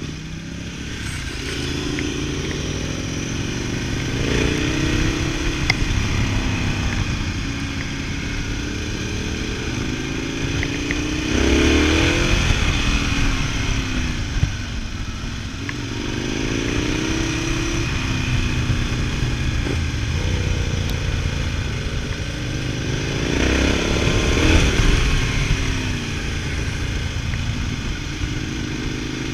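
Ducati Multistrada 1000DS's air-cooled L-twin engine under way, repeatedly accelerating with its pitch rising, then dropping back between pulls, as the rider works through the gears on a climbing road.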